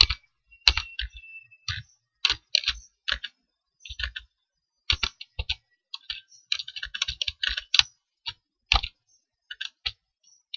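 Typing on a computer keyboard: sharp keystrokes in short irregular runs with brief pauses between them.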